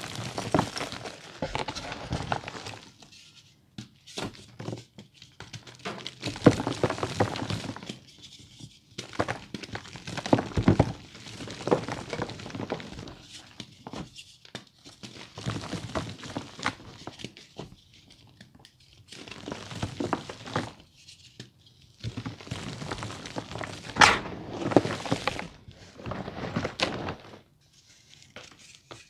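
Gloved hands squeezing and crumbling reformed gym chalk: crunchy bursts of chalk chunks breaking apart and powder sifting down, a second or two each with short pauses between. The bursts quieten near the end.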